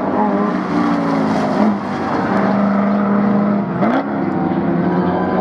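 Several racing cars' engines running hard at once. Their notes overlap and shift in pitch, with one held steady through the middle and a sharp rise about four seconds in.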